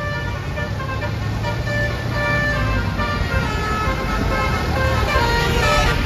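Bus 'basuri' telolet horn playing a tune of stepped, held notes, over the low rumble of passing vehicles.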